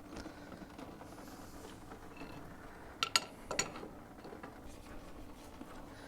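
Quiet handling of tools and parts, with three sharp metallic clinks in quick succession about three seconds in.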